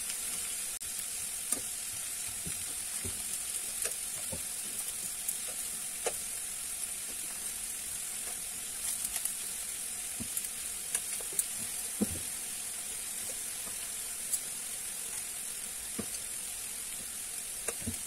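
Eggplant slices frying in hot oil in a pan: a steady sizzle with scattered sharp clicks and pops.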